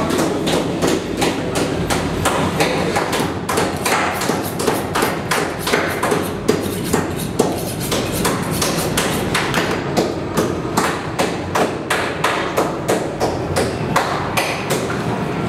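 Knives striking plastic cutting boards as several butchers cut up meat together: many short, irregular knocks and taps, several a second, over steady room noise.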